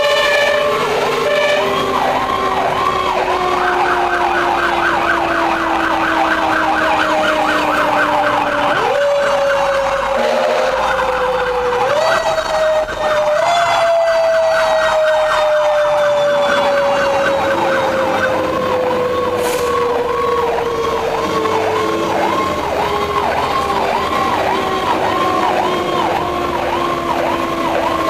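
Fire truck sirens heard from inside the cab while it drives on a call. One siren cycles in a quick repeating wail, switches to a faster, higher yelp about four seconds in, and returns to the slower pattern near eighteen seconds. Under it runs a second, lower siren tone that slowly falls in pitch and is pushed back up twice, about nine and twelve seconds in.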